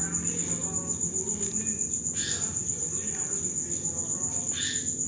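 A steady high-pitched trill pulsing evenly several times a second over a low background hum, with a soft scrape about two seconds in and another near the end.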